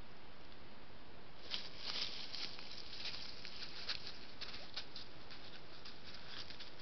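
Gray wolf's footsteps crunching and rustling through dry leaf litter on the forest floor, an irregular run of short crackles beginning about a second and a half in, over a steady hiss.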